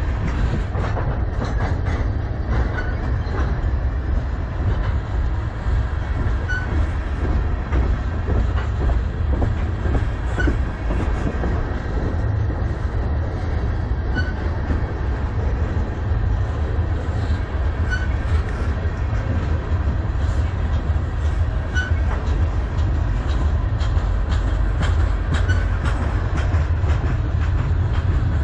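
Freight train cars (tank cars and covered hoppers) rolling past close by. A steady heavy rumble runs throughout, with the wheels clacking over the rail joints.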